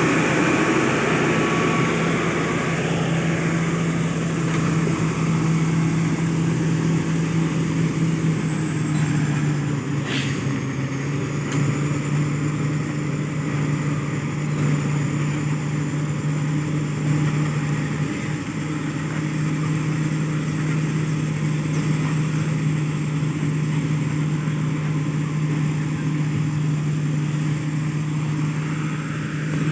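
Diesel engine of a Caterpillar 12F motor grader running steadily under way, with a steady high whine over the low engine note; the pitch settles slightly lower about a third of the way through.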